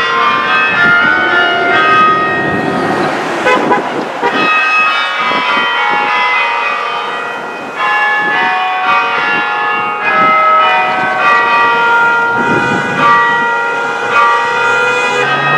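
Newly restored school bell-tower bells chiming: several tuned bells struck one after another, their tones overlapping and ringing on. A car passes underneath in the first few seconds.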